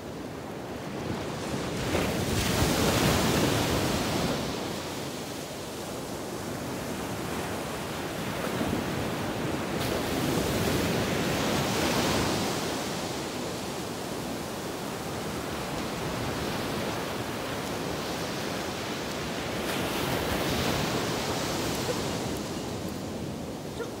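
Ocean surf breaking and washing up a beach, swelling loudest three times, about every nine seconds.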